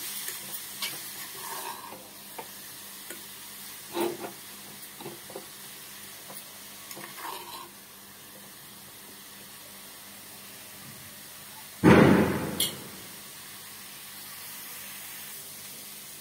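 Grated beetroot and onion frying gently in a small steel saucepan, a faint steady sizzle, with a steel spoon clinking and scraping against the pan while stirring in the first half. About twelve seconds in comes one loud, short clatter.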